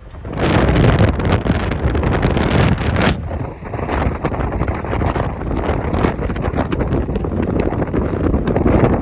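Wind buffeting the microphone in loud, dense gusts over a low rumble, with an abrupt change in the sound about three seconds in.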